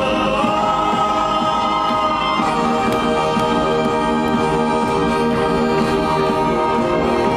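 Live band music: violin and electric bass playing sustained notes and chords, with one long high note held for about two seconds near the start.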